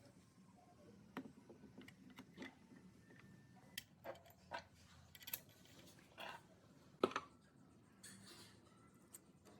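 Faint, scattered clicks, taps and light scrapes at an uneven pace, with a sharper click about seven seconds in.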